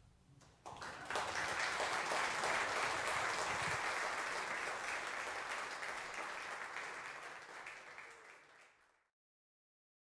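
Church congregation applauding, starting suddenly about a second in and slowly dying down, then cut off abruptly near the end.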